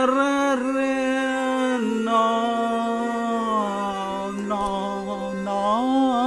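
Electronic music drone: a sustained, voice-like pitched tone that holds steady, steps down a little about two seconds in, and bends briefly in pitch near the end.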